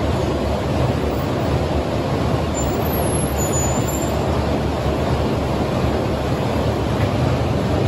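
Backhoe loader's diesel engine running steadily under load while its rear digging arm works in a trench in a concrete floor.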